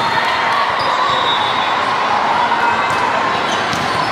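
Volleyballs being hit and bouncing on a hardwood gym floor, a scatter of sharp smacks over the steady din of a busy multi-court sports hall with voices in it.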